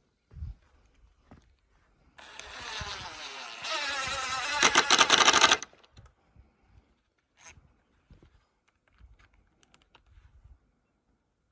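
A cordless power driver runs for about three seconds driving a screw into wood, its motor pitch sweeping and growing louder in two steps, ending in a fast rattling clatter before it cuts off suddenly. A dull knock comes just before, about half a second in.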